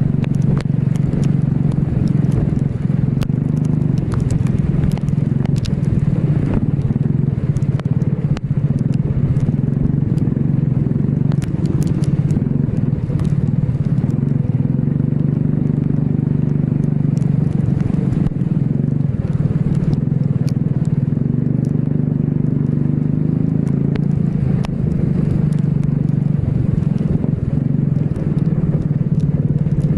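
Racing kart engine running at speed around a wet track, its pitch wavering up and down, with scattered short crackles over it.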